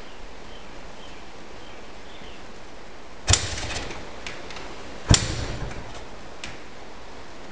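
Two sharp knocks about two seconds apart, each followed by a brief rattle, with a few fainter clicks, over a steady hiss.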